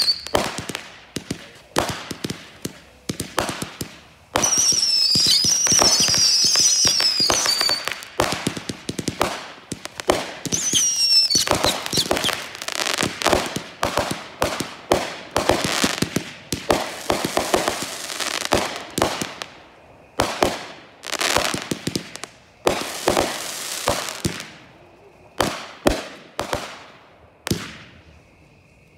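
Consumer firework cakes going off: rapid bangs and crackling, with a cluster of falling whistles about four seconds in and again near eleven seconds. A dense run of shots and crackle follows, then the firing thins to single, spaced bangs near the end.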